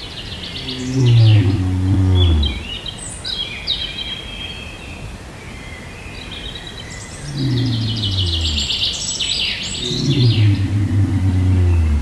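A lion calling three times, each a low growling call about a second and a half long that falls in pitch, about a second in, at about seven seconds and at about ten seconds. Birds chirp and trill high above it throughout.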